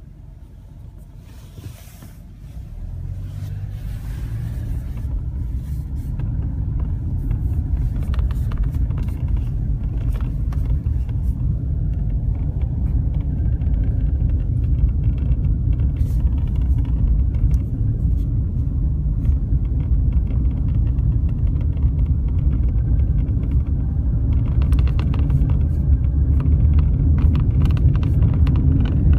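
Mazda CX-5 under way: a steady low rumble that builds up over the first few seconds, with scattered short knocks through it. The knocks are the unexplained noise the owner is asking about.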